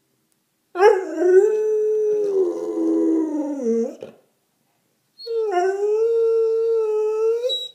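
Springer spaniel howling: two long howls, the first wavering and sliding down in pitch at its end, the second held fairly steady.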